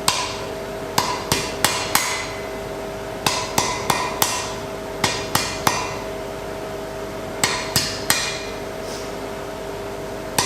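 Blacksmith's hand hammer striking iron on an anvil in short runs of three or four quick blows, each ringing briefly, with pauses between the runs, as the shoulder of the piece is forged.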